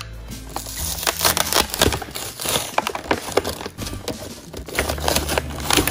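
Clear plastic blister packaging crinkling and the cardboard backing card tearing as toy pieces are pulled off it: an uneven run of crackles, rustles and rips.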